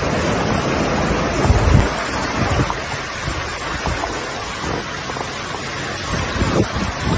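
Rushing floodwater with wind buffeting the microphone, a dense steady wash of noise with gusty low rumbles, the strongest about a second and a half in.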